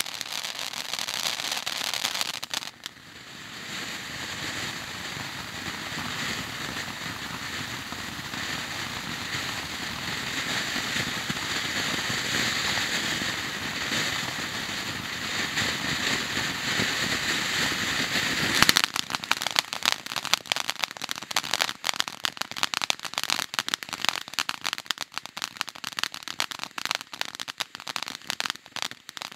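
Howler Fountain consumer firework fountain burning: a steady rushing hiss of sparks with crackling, dipping briefly about three seconds in. About two thirds of the way through, a sharp burst turns it into dense, rapid crackling.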